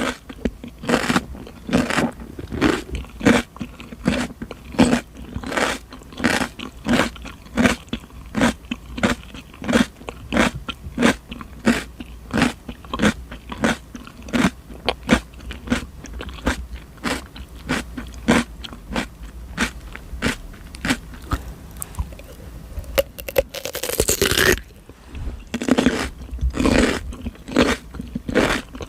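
Close-miked chewing of raw cucumber: crisp, wet crunches at about two to three a second. One longer, louder crunch comes near the end.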